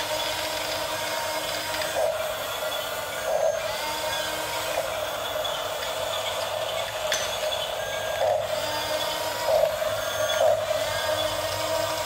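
Electric drive motors and plastic gearboxes of two toy RC bulldozers, a Huina 1554 and a Yigong model, whining steadily as they crawl on their tracks and shove blade against blade. The pitch steps up and down every second or so as they turn and change direction.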